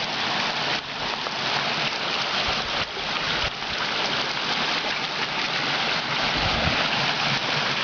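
Stream water rushing and splashing steadily down a small cascade where it has overflowed across a gravel road, its culvert blocked by beavers. A few low bumps sound briefly over the water.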